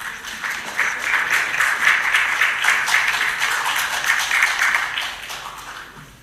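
Audience applauding, building up in the first second and fading out near the end.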